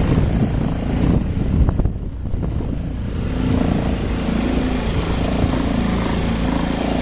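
Steady low rumble of a boat's motor running, with wind buffeting the microphone.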